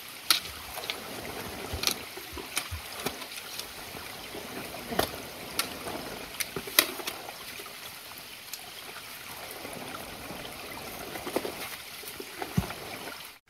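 Footsteps of hikers on a rocky, stony trail: irregular sharp clicks and scuffs about a second apart, over a steady outdoor hiss.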